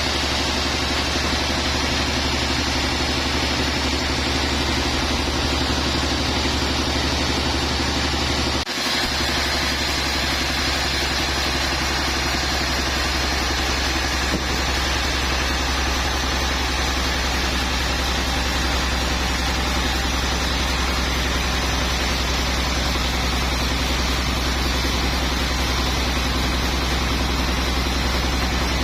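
Sawmill machinery running steadily: a constant low engine-like hum under an even hiss, with a momentary break about nine seconds in.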